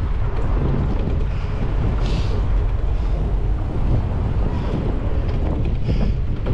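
Wind buffeting the microphone while riding a bicycle, a steady low rumble mixed with road noise.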